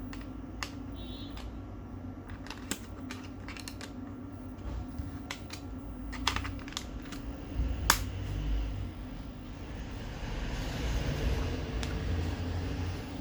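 Keys of a Logitech K380 Bluetooth keyboard clicking as they are pressed, in scattered, irregular keystrokes over a steady low hum. A soft rustling hiss comes in during the last few seconds.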